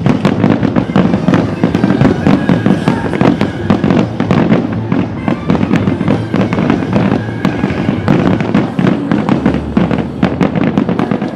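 A finale barrage of aerial firework shells: many loud bangs and crackles in quick succession, overlapping without a break.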